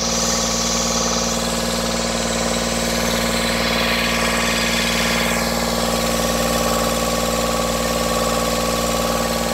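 Volvo Penta MD2020 three-cylinder marine diesel running steadily at raised revs, heard close up in the engine compartment, on its test run with a newly fitted exhaust waterlock.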